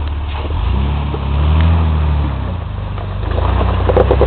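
Off-road Jeep's engine working under load as it crawls up a rock ledge, its revs swelling and rising twice, the second time with a rough chatter.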